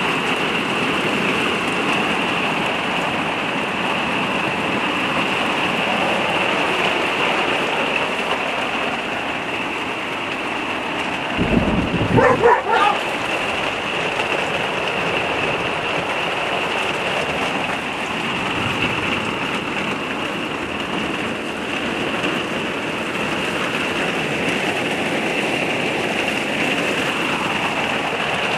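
Torrential rain falling on a caravan's roof and windows, heard from inside as a steady, dense hiss. About twelve seconds in, a dog barks briefly over the rain.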